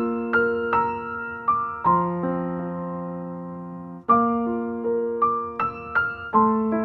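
Soft solo piano music: gentle melody notes over sustained chords, with a long held chord a couple of seconds in.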